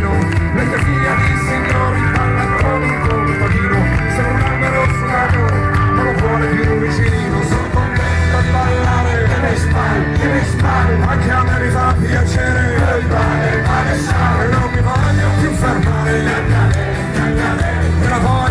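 Live band playing an instrumental passage of a folk-rock song, steady and loud, with a strong bass line and a regular beat.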